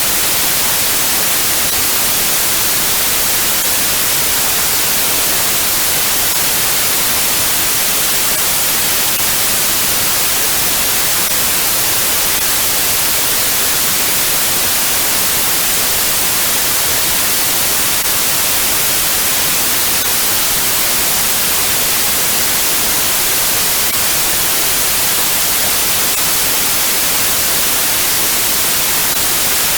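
Steady, loud white noise: an even hiss, brightest in the highs, unchanging throughout.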